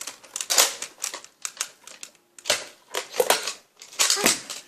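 Irregular sharp plastic clicks and clacks, a dozen or so, from a Nerf blaster being handled and worked.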